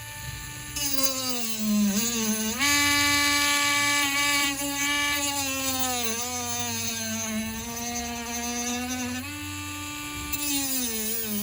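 Small handheld rotary cutting tool whining as it cuts through a charger's hard plastic case. Its pitch sags when the cutter bites in under load and climbs back when it frees up, several times over.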